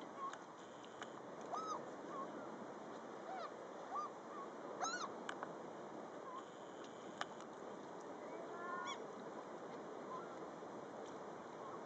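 Herring gulls calling: scattered short calls that rise and fall in pitch, the loudest about five seconds in, and a quick run of short notes near nine seconds, over a steady background hiss.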